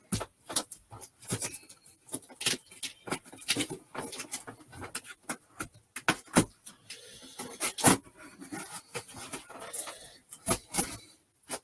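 A cardboard shipping box being cut open and handled: a steady run of irregular sharp clicks, scrapes and rustles from the cutting blade, tape and cardboard flaps.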